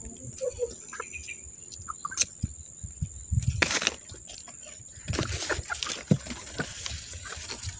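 Crumpled paper rustling and crackling in the hand as it is lit with a lighter to start a fire, with a short louder rustle about three and a half seconds in and denser rustling from about five seconds on.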